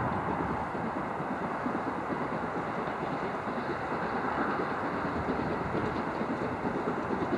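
LMS Stanier Black Five two-cylinder 4-6-0 steam locomotive working hard up a gradient towards the listener, its chimney exhaust beating steadily.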